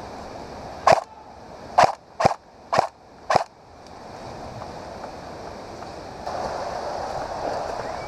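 Airsoft gun firing five sharp, uneven shots in the first few seconds, then a steady rushing noise that rises about six seconds in.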